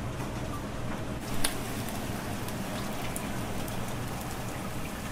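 Eels sizzling and crackling in a wire grill basket under a gas broiler at the unsauced shirayaki stage, over a steady low hum. A sharp metal clank about a second and a half in as the basket is handled.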